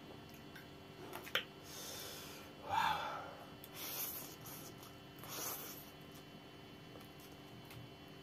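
Spicy instant noodles being slurped and chewed off forks, with a few breathy slurps, the loudest about three seconds in, and a fork clicking against a plate about a second in.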